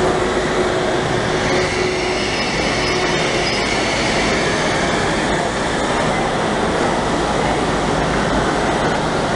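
Steady, even rumble and hiss of high-speed trains at a station platform, as a Frecciarossa 1000 rolls slowly in beside a standing Italo train.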